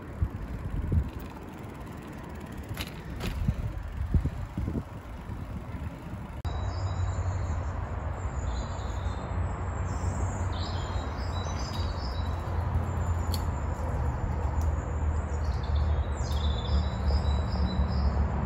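Riding noise while cycling: a steady low rumble that gets louder about six seconds in, with birds chirping high over it from then on.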